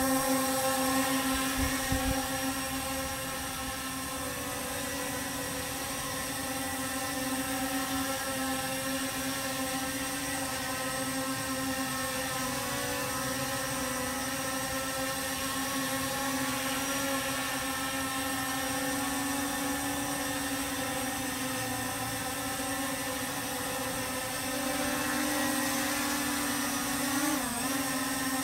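C-Fly Faith2 Pro quadcopter drone's propellers whining steadily as it hovers and drifts sideways; the sound falls a little as the drone moves away and grows again as it comes back near the end, with a brief wobble in pitch just before the end.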